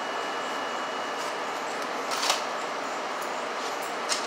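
Steady hiss of a convenience store's ventilation and drink coolers, with a brief soft noise about two seconds in.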